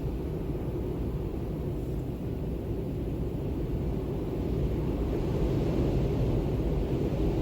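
Wind ambience: a steady, low rumbling rush of wind that swells slightly about five seconds in.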